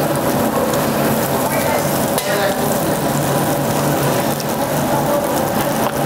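Pork belly (samgyupsal) sizzling steadily on a hot tabletop grill.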